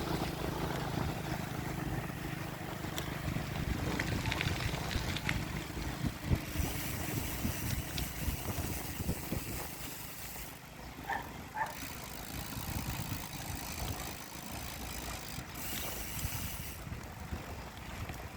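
Wind and road rumble heard while riding a bicycle, with two stretches of brighter hiss, one in the middle and one near the end, and a couple of faint short chirps about two-thirds of the way through.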